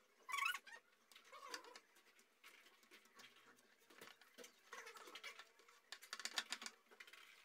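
A fork mashing boiled potatoes on a ceramic plate: quiet, irregular scraping and tapping of the fork against the plate, with a couple of short squeaks near the start.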